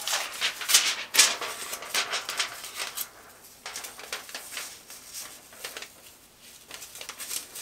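Close rustling and crinkling of salon foil and hair handled with gloved hands and a tail comb, in irregular bursts, busiest in the first three seconds and sparser after.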